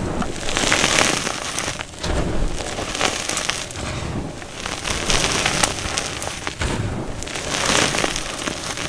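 Hands scooping and squeezing heaps of loose, crumbly powder: a gritty crunching and crackling of clumps breaking and grains pouring, coming in repeated swells about every second and a half.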